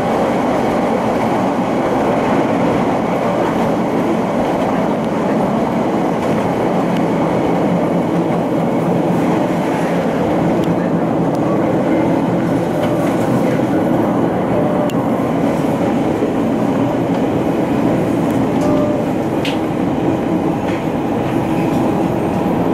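Kanto Railway diesel railcar running along the track, heard from inside the driver's cab: a steady engine and wheel rumble with a few faint clicks from the rails.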